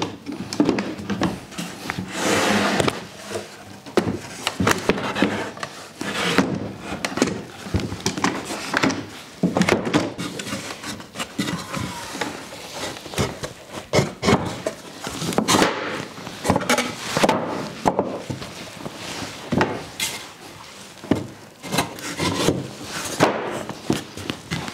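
2x4 timber pieces being handled and fitted into a frame: irregular wooden knocks and clunks, with wood rubbing and sliding against wood.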